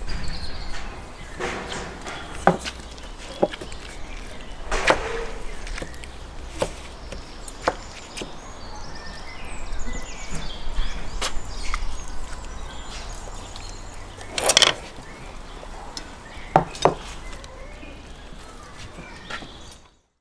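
Metal spoon and spatula tapping, clinking and scraping against a metal baking tray and plates while baked salmon is lifted out and served: scattered light knocks and clicks, with a few louder scrapes, over a low background rumble.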